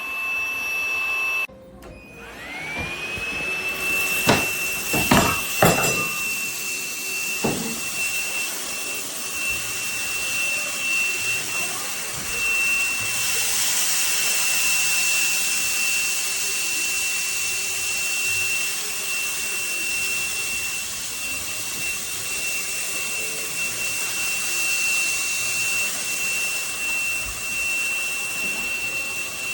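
Cordless stick vacuum running with a steady high-pitched motor whine. About a second and a half in, the motor cuts out and spins back up with a rising whine. A few sharp knocks follow a couple of seconds later.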